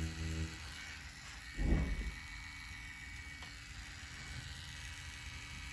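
Spectra Flux rotary tattoo pen running with a steady hum, then switching off about half a second in. About a second later comes a brief loud thump, then only a faint steady hum.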